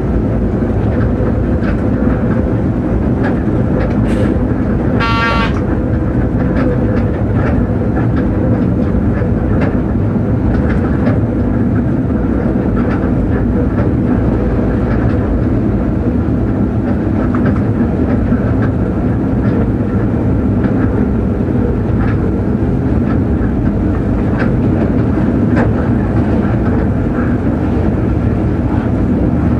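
Inside the driver's cab of a ČD class 363 electric locomotive running along the line, with steady running noise from the wheels and traction equipment. Faint clicks are scattered through it. About five seconds in there is a short, high-pitched tone.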